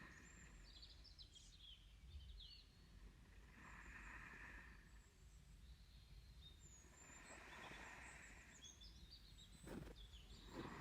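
Faint, slow breathing close to the microphone, one soft breath about every three and a half seconds, with faint birds chirping in the background.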